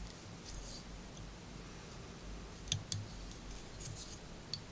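Fly-tying handling noises at a vise: a soft rustle about half a second in, then a handful of small, sharp clicks and ticks over the second half.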